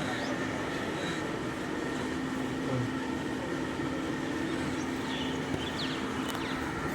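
A steady mechanical hum with a constant low tone running through it.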